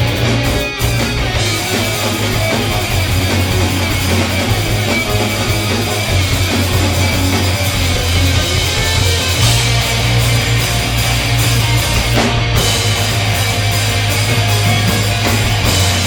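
Background rock music with distorted electric guitar and a steady heavy bass.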